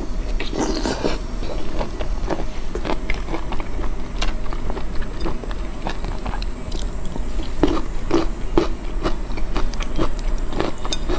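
A person biting and chewing whole shell-on prawns close to a clip-on microphone: wet chewing with scattered crisp clicks and crunches, thickest about half a second to a second in and again around eight seconds in.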